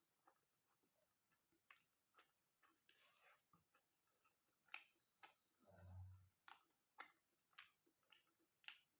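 Faint close-up chewing of chicken curry and rice: irregular wet mouth clicks, with one low thud about six seconds in.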